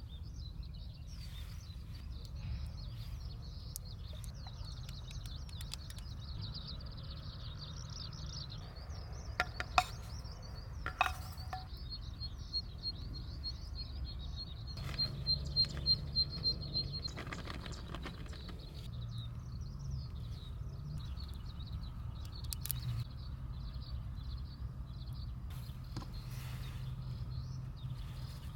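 Eurasian skylark singing a long, continuous, high warbling song over a steady low rumble of wind. A few sharp knocks sound near the middle.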